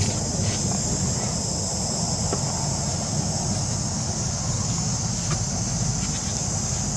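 Steady high-pitched drone of an insect chorus, unbroken throughout, over a steady low rumble.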